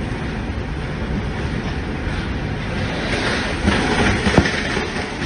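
Strong storm wind rushing steadily with a deep rumble, growing harsher about three seconds in, with a single sharp crack a little past four seconds.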